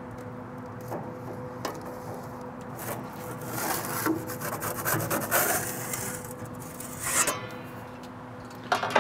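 Metal pizza peel and parchment paper scraping and rustling across a pizza stone as a calzone is slid into the oven: a couple of light knocks, then a few seconds of rubbing scrapes, and a sharp clack near the end. A steady low hum runs underneath.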